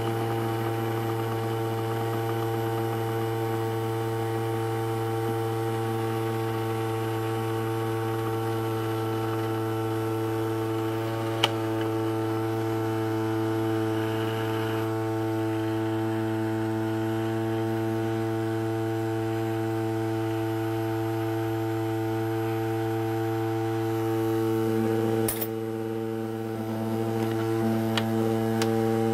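Small ultrasonic cleaner running with coins in its water tank: a steady electric buzzing hum. A single click sounds about a third of the way in, and the hum wavers briefly near the end.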